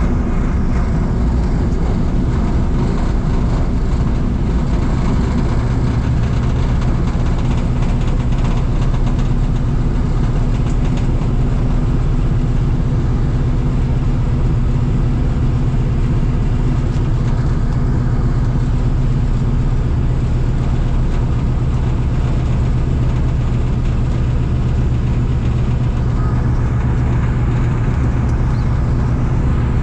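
Ford Tri-Motor's radial engines running at low taxi power, heard from inside the cabin: a loud, steady drone with a low hum that strengthens about six seconds in.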